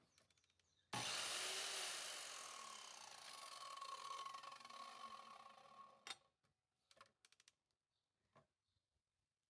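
Einhell mitre saw running and cutting into a wooden workpiece. It starts abruptly about a second in and stops sharply about six seconds in, followed by a few light clicks.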